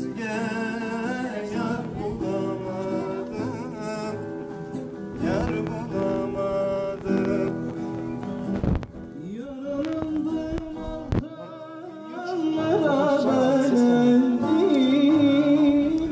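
Live Turkish folk singing with plucked-string accompaniment. About nine seconds in, the song breaks off and a louder song with singing and plucked strings takes over.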